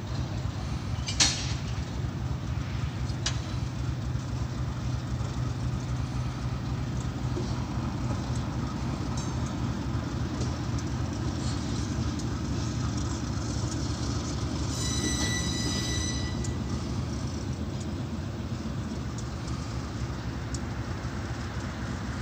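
Steady low diesel rumble of idling railway locomotives in a rail yard. A sharp click comes about a second in, a fainter one at about three seconds, and a brief high-pitched squeal lasts about a second and a half near the fifteen-second mark.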